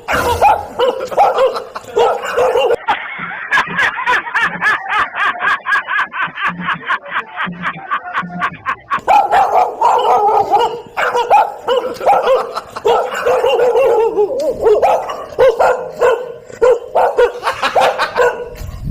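Dog-like barking and yipping, with a fast run of short yaps, about five a second, in the middle, then a string of irregular barks.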